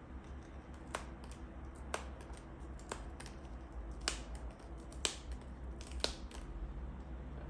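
Sharp clicks, about one a second, with fainter clicks between, over a low steady hum.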